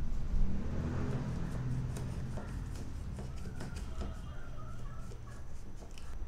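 A knife blade pressing and scraping through hot peanut-jaggery brittle in a steel plate, with a few faint clicks of the blade against the plate, over a steady low rumble.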